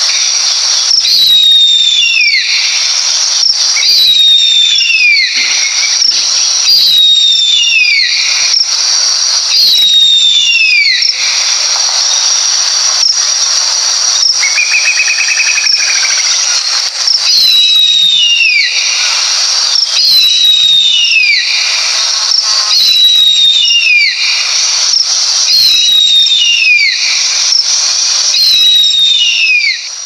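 Harpy eagle calling: a series of high, thin whistled screams that glide downward, repeated about every second and a half, with a break in the middle. The calls sound over a steady high hiss.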